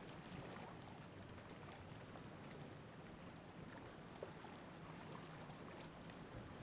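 Faint, steady hiss of wind and lake water at the shore, with a few soft ticks.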